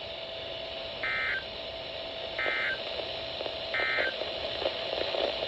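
Emergency Alert System end-of-message code on a NOAA Weather Radio broadcast: three short digital data bursts about a second apart, over a faint steady hum and hiss of the radio. The bursts signal the end of the severe thunderstorm warning.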